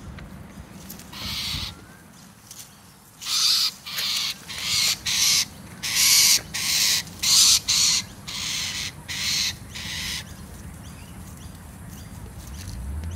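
Injured rainbow lorikeet on the ground squawking in alarm at a dog close by: a harsh screech, then a quick run of about a dozen more, each a fraction of a second long.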